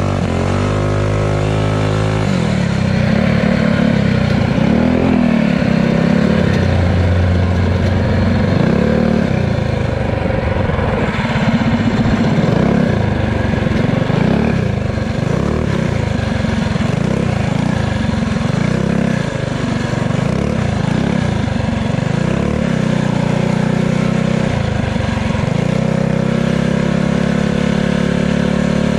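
Pit bike engine running under load as it is ridden, its pitch climbing in the first couple of seconds and then rising and falling with the throttle.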